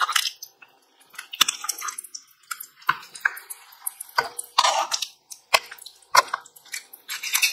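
A spatula stirring and pushing thick gravy around a nonstick pan: irregular wet squelches and sloshes with sharp clicks and scrapes where the spatula meets the pan.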